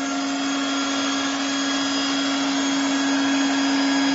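Blower motor of a TOP2000D hot air welding machine running at a steady pitch just after being powered on, a hum with a whine above it that grows slightly louder; the heating element is not yet switched on.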